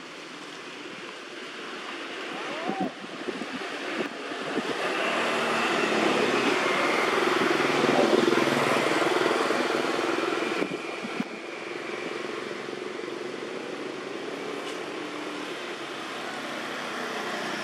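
A motor vehicle's engine running close by, swelling in level over several seconds and easing off again after about ten seconds. A short squeak that rises and falls comes about three seconds in.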